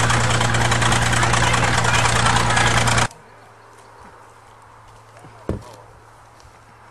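Heavy diesel engine of a 1953 International TD20 crawler bulldozer running loudly and steadily, cutting off suddenly about three seconds in. A single short thump comes about two and a half seconds later.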